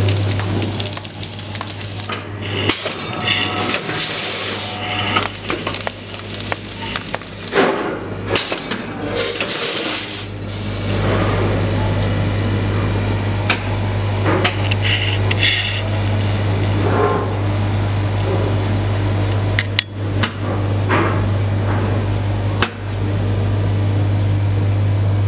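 Pouch packing machine running: the electromagnetic vibratory feeders of its two-head weigher hum steadily, with clattering and two loud hissing bursts in the first ten seconds and sharp clicks near the end. The hum thins out for several seconds, then comes back strong about ten seconds in.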